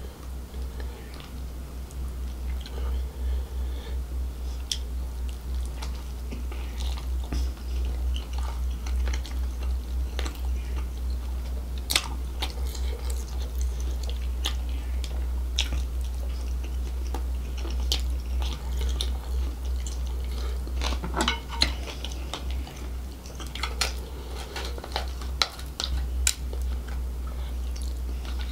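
Close-up chewing and sucking on crab in a thick gravy, with scattered sharp cracks and clicks as the crab shell is broken apart by hand and mouth. Beneath it is a steady low hum.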